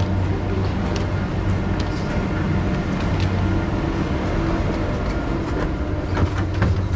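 A passenger train at a platform: a steady low hum with scattered clicks and knocks, and a few brief squeaks near the end.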